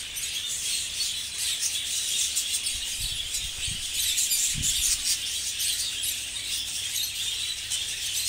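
A roomful of budgerigars chattering and chirping continuously, a dense high twittering. Between about three and five seconds in there are a few dull knocks as a nest box is handled.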